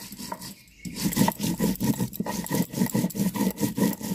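Stone roller rubbed back and forth on a flat stone grinding slab (sil-batta), crushing garlic, chillies, ginger and cumin into a wet masala paste: rhythmic scraping strokes. A few strokes, a short break, then fast, even strokes about four a second from about a second in.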